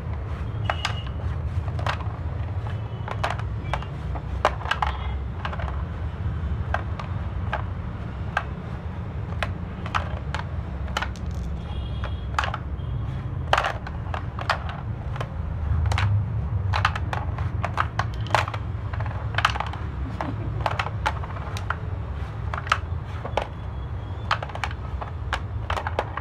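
Wooden pucks on a wooden sling-puck board, shot by its elastic bands and knocking against the board and each other in rapid, irregular clacks, over a steady low hum.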